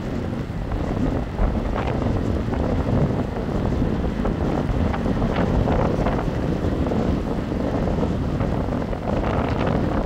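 Storm wind buffeting the microphone over heavy surf breaking along a pier, with a few sharper splashes of waves among the steady rumble.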